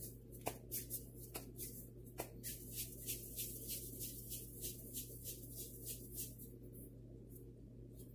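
Hands patting and working a piece of dough in flour: a quick run of light, soft taps and rustles, about three a second, that stops near the end, over a faint steady low hum.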